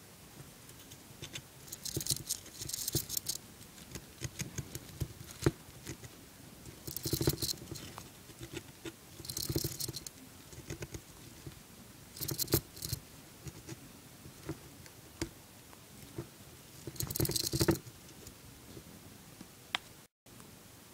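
Hamster gnawing at the wooden sticks of a chew toy, trying to get at a peanut inside: about five short bursts of rapid scraping clicks with pauses between, and scattered single clicks in the gaps.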